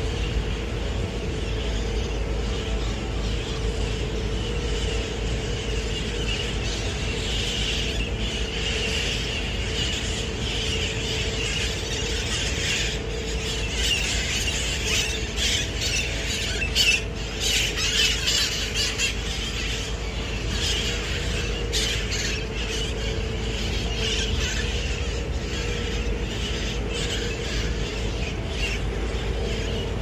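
A flock of red-masked parakeets screeching and squawking in flight, many overlapping calls at once. The calls grow loudest about halfway through as the flock passes close.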